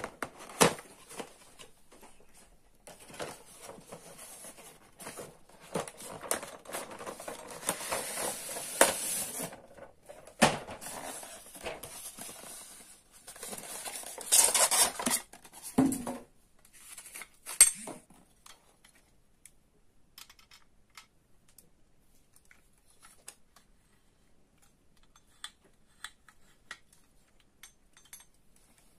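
A cardboard box and white polystyrene tray holding a die-cast model truck being handled and opened: rubbing and scraping with several sharp knocks. After about 18 seconds it drops to faint, scattered taps.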